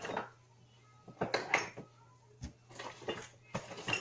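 Kitchen utensils and dishes clinking and knocking in a series of short, irregular clatters.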